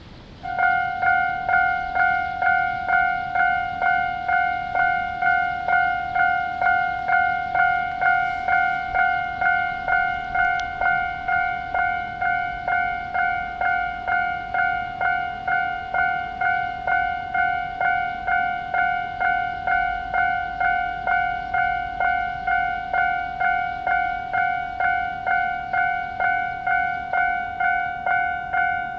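Japanese level-crossing alarm starting up about half a second in, then ringing a steady 'kan-kan' of electronic bell strikes, about one and a half a second, in the standard tone (slightly high-pitched), warning that a train is approaching.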